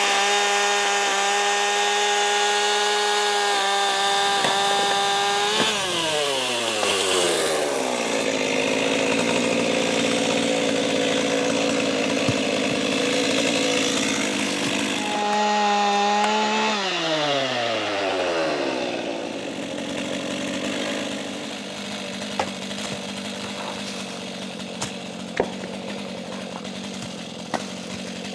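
Gasoline chainsaw at full throttle, its high whine falling in pitch as the chain bites into a log and cuts through. Partway through it revs up free again for a moment and bogs down into a second cut. It then drops back to a quieter lower running speed, with a few sharp knocks near the end.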